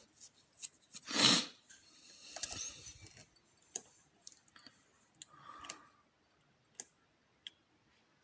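Lock pick and tension wrench working the pins of a pinned Euro cylinder under light tension: scattered small metallic clicks as pins are lifted and set, with a louder brief rustle about a second in.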